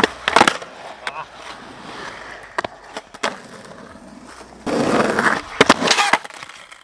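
Skateboard wheels rolling on concrete, broken by sharp clacks of the deck popping and landing. Near the end comes a cluster of hard clacks as the board slaps the ground.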